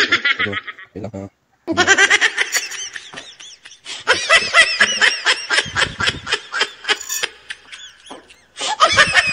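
Laughing sound effect: rapid, high-pitched laughter in quick repeated pulses, starting about two seconds in, breaking off briefly near the eight-second mark, then starting again near the end.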